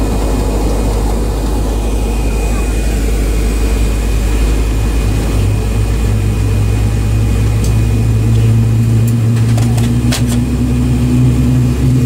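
Airliner cabin noise while taxiing: a steady low rumble of the jet engines and airflow, with a low hum that swells in from about the middle. A few sharp clicks near the end.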